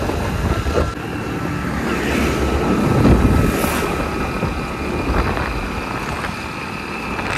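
Motorcycle running at road speed: the engine under a steady rush of wind and road noise.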